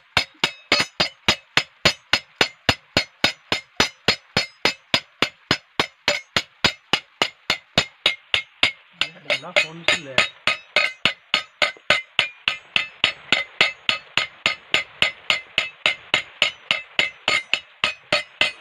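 Small hand hammer striking a polished metal mug held over an iron rod stake, steady blows about three a second, each with a short metallic ring: hand-hammering a textured finish into the mug's surface.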